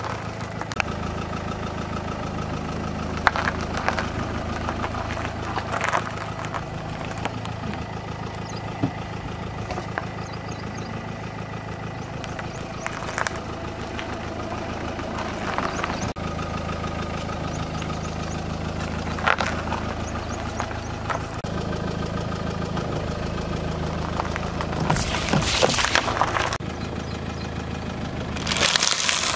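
Car tyre slowly rolling over and crushing food on asphalt over a car's steady idling engine hum, with scattered crackles and squelches. Louder crunching and crackling comes near the end as a bag of crunchy snack sticks is crushed.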